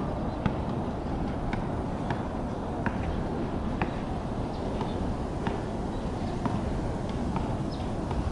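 Steady outdoor background rumble, with faint short high ticks scattered irregularly about once a second.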